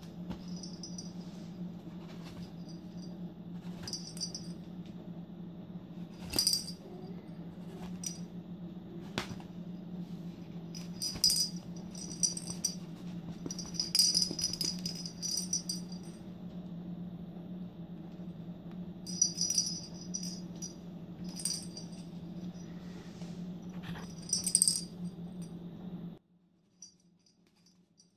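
Small jingle bell inside a red ball toy jingling in irregular bursts as a kitten bats and chews it, over a steady low hum that cuts off abruptly near the end.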